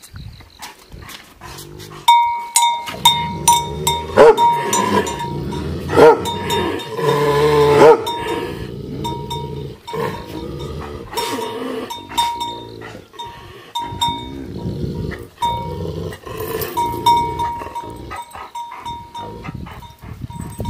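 Loud animal calls, heaviest from about two to eight seconds in, with a bell clinking again and again underneath.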